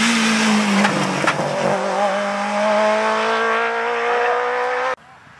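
Rally car's engine passing close at speed. Its pitch drops over the first second or so, then climbs steadily as it accelerates away. The sound cuts off abruptly near the end.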